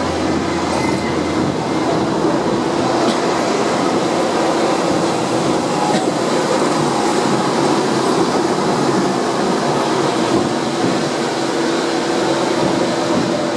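Hong Kong double-decker electric tram running along its rails, heard from on board: a steady rumble and rattle with a constant hum underneath.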